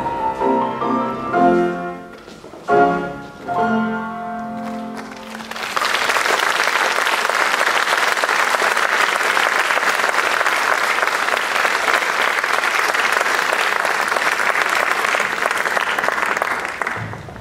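Piano music ending on a held low chord, then audience applause that starts about six seconds in, holds steady and dies away near the end.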